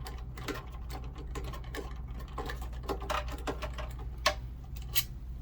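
Quick, irregular metallic clicking and ticking of a hand tool backing out the screws that hold a mobility scooter's controller, with two sharper clicks near the end, over a low steady hum.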